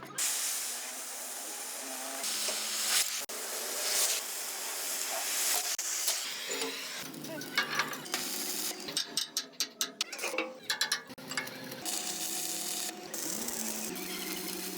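Stick-welding arc crackling and sizzling with a steady hiss, cut into several short stretches, with a choppy run of sputtering bursts around the middle.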